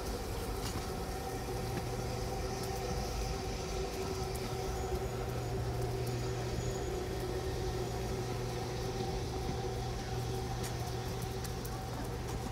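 Steady city street noise: a continuous engine-like drone with several held tones and no change in pitch, with a few faint ticks.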